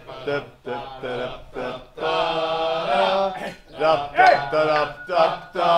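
A group of men singing together, with several long held notes.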